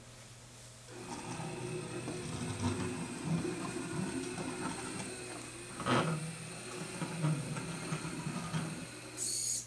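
Small wheeled robot's geared drive motors whirring as it drives across a wooden floor, starting about a second in, with a brief louder whine about six seconds in and a short hiss just before the end.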